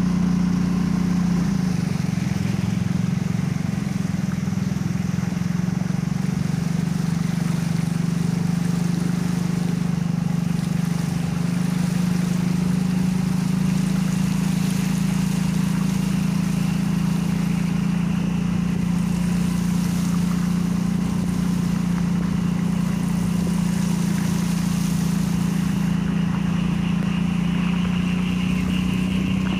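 Motorcycle engine running steadily while riding through a flooded street, with a constant hiss and swish of water under the tyres.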